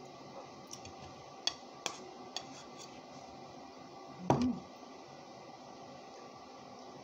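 A spoon clicking against a bowl several times in the first two and a half seconds, then one louder slurp from the spoon of thick champorado (chocolate rice porridge) about four seconds in.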